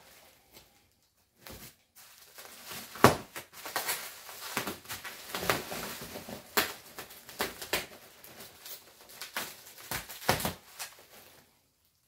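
Bubble wrap rustling and crackling as a wrapped unit is handled and its packing tape cut with scissors: irregular crinkles with a few sharper crackles, the loudest about three seconds in.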